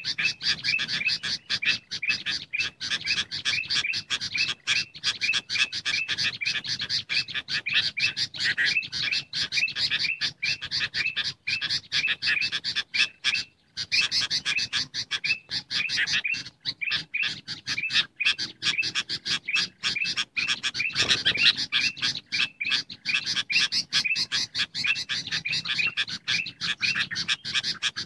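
Bulbuls chattering: a bird-trapping lure recording of sooty-headed bulbul calls mixed with ruby-throated (golden) bulbul calls, a dense run of rapid, repeated chirps. It breaks off briefly about halfway through.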